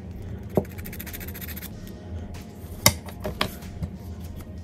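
Rapid back-and-forth scratching of a padded nail buffer board rubbed across a fingernail for about a second, followed by several sharp knocks on the wooden tabletop, the loudest about three seconds in.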